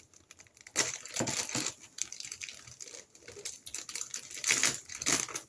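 Short clicks and rustling of packaging being handled as a second box of cake mix is opened, in irregular bunches about a second in and again near the end.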